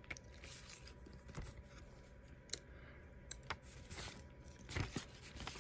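Paper booklets and glossy cards being handled and shuffled: faint rustling with scattered light crackles and flicks, a slightly louder cluster a little before the end.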